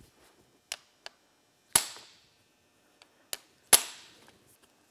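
Hammer striking a hand impact driver fitted with a Phillips bit, to break loose small carburetor cover screws. There are a few light taps and two hard, ringing blows about two seconds apart, the second the loudest.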